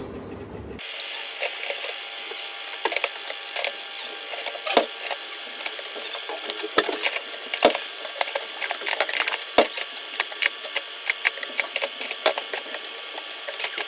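A rapid, irregular run of clicks and knocks over a steady high hum, with sharper knocks about five, seven, eight and ten seconds in.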